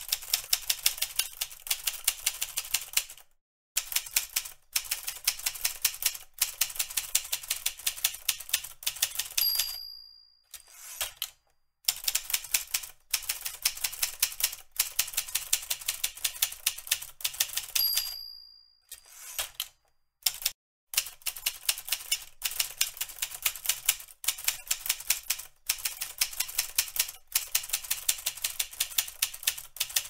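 Typewriter keys struck in fast runs of clacks, broken by short pauses. The margin bell dings twice, about a third and about two-thirds of the way in, signalling the end of a line before typing resumes.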